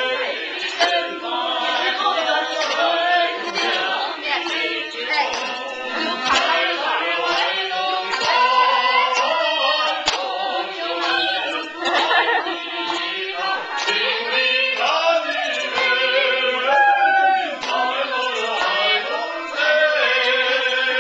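A group of children singing together in unaccompanied voices, with some long held notes.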